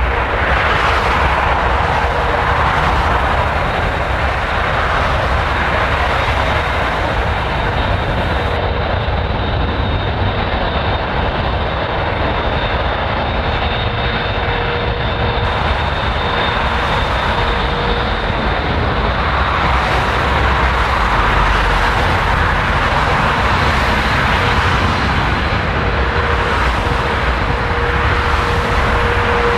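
Airbus A380 airliner's four jet engines running on the runway: a steady rumble with a thin high whine over it.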